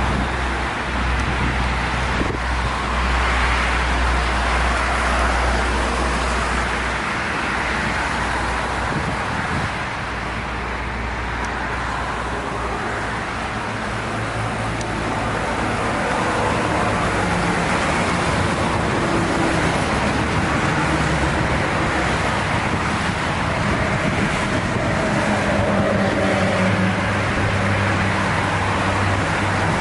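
Road traffic going by continuously: vehicle engines and tyres, with a deep low rumble for the first several seconds and engine notes rising and falling later on.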